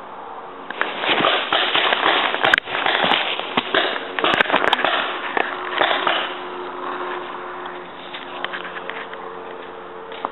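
Paintball markers firing, with sharp popping shots in quick strings. The shots are dense and heavy from about one second in until about six seconds in, then thin to scattered pops, with rustling of brush and leaves as the player moves.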